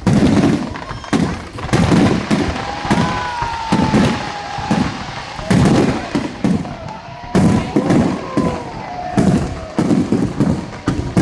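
Aerial fireworks bursting in quick succession, a sharp bang or boom about every second, with a wavering tone rising and falling through the middle of the display.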